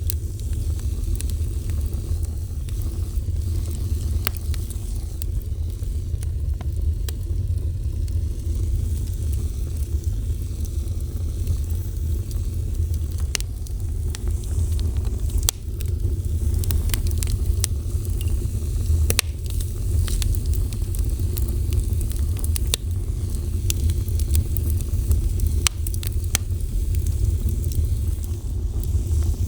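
Wood fire burning with a steady low rumble and scattered sharp crackles and pops.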